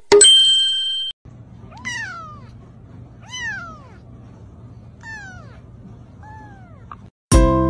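Young kitten meowing four times, one call about every second and a half, each rising then falling in pitch. The kitten's calls follow a ringing tone that dies away in the first second. Music starts just before the end.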